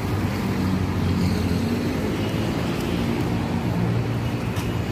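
Steady road traffic: the rumble of cars and motorcycles running along a busy city boulevard.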